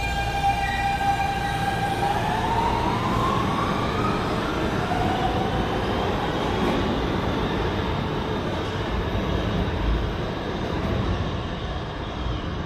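New York City subway train running through the station, with a steady rumble of wheels on rail. An electric motor whine rises in pitch about two to four seconds in, then fades into the rumble.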